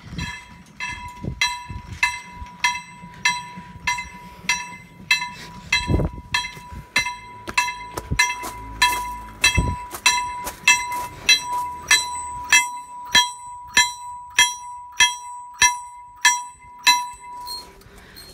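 Electric railway level-crossing bell on a striped post, ringing with even strokes about three every two seconds, then stopping shortly before the end.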